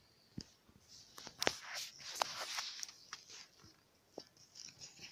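Hands rolling a sheet of soft yeast dough studded with raisins into a log on a plastic tablecloth: irregular rustling, sticky peeling and soft clicks of dough and palms against the plastic, with a sharp tap about half a second in.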